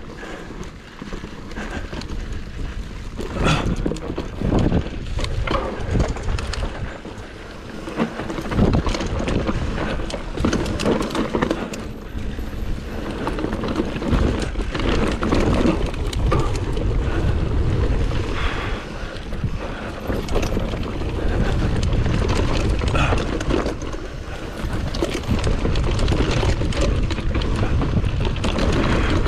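Enduro motorcycle ridden along a rough trail: wind buffeting on the microphone over the running engine, with frequent knocks and clatter from the bumpy ground.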